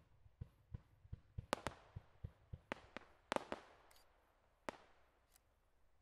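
Aerial fireworks firing a rapid string of shots, about three a second: dull low thumps mixed with sharper cracks that echo. The loudest cracks come about one and a half and three and a half seconds in, with one more near the end.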